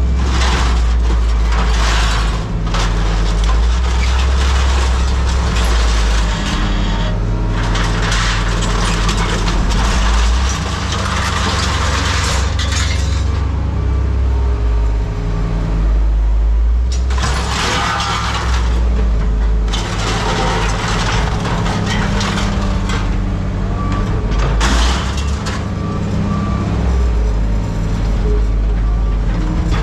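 Heavy engine running with a steady low rumble, overlaid by loud noisy bursts of a second to several seconds each, like crashing or hissing from heavy equipment.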